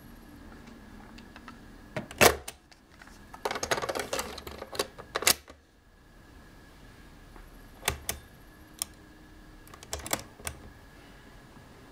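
The piano-key transport buttons of a Superscope C-205 cassette recorder being pressed and released: a series of sharp mechanical clacks and clunks. The loudest comes about two seconds in, followed by a busy rattle of clicks, then a few single clicks near the end.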